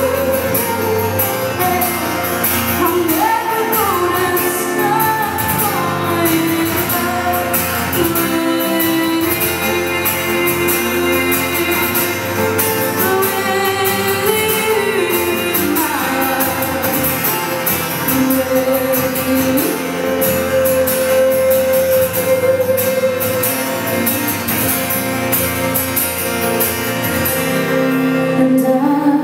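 Live acoustic duet: a sung vocal melody over two guitars, one a skeleton-bodied silent guitar played by the singer and the other an acoustic guitar.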